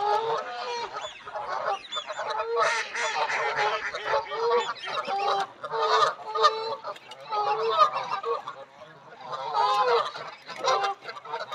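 A flock of Canada geese honking, many loud calls overlapping and repeating without a break.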